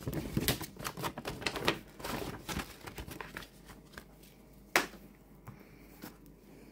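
Paper and cardboard being handled on a table: a dense run of crisp clicks and rustles as a large folded paper poster and card boxes are moved, thinning out after about three seconds, with one sharp tap a little before five seconds in.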